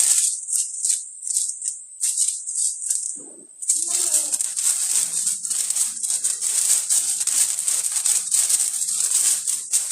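Background music carried by a shaker-like percussion pulsing about four times a second; after a brief break about three and a half seconds in, it comes back denser, with lower parts underneath.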